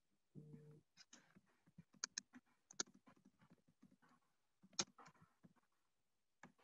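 Near silence broken by faint, scattered clicks and taps, with a brief low hum about half a second in.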